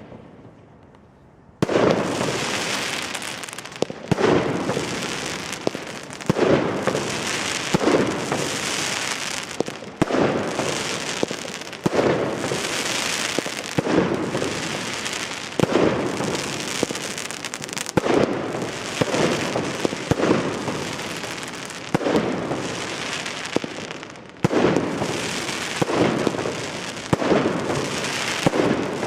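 Consumer firework batteries (cakes) firing after a short quiet start: loud bangs about every one to two seconds, with a dense rushing noise between them, running on without a break.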